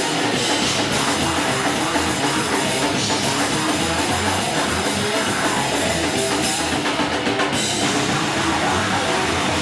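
Thrash metal band playing live: distorted electric guitars, bass and a pounding drum kit at a fast tempo.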